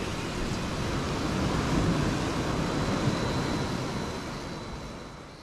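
Waves washing against a rocky shoreline with wind buffeting the microphone, a steady rushing noise that fades out near the end.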